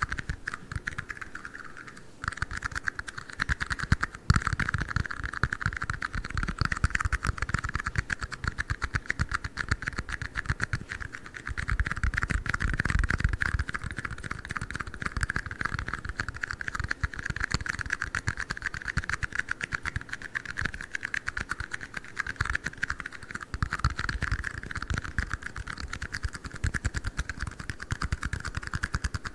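Fast ASMR tapping on red plastic cups: a dense, continuous run of small clicks, like typing.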